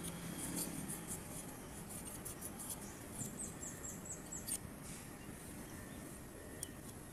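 Faint clicks and rattles of a blender's metal switch assembly being handled and turned in the fingers, with a quick run of high chirps in the background about three seconds in.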